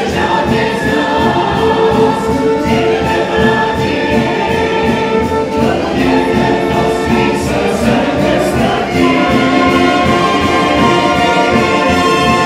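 Theatre orchestra with brass playing a show tune with a steady beat, while an ensemble chorus sings over it.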